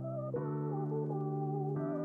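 End-card background music: soft synthesizer chords, each held and then changed about every second and a half, with a light melody on top.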